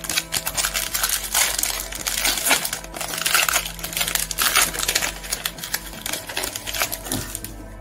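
Plastic wrapper of a Topps Update baseball card pack crinkling and tearing as it is ripped open by hand, a dense run of crackles that dies away near the end.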